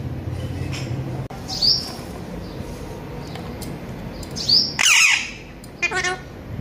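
Alexandrine parakeet giving several short, high squawks, with the loudest call about five seconds in.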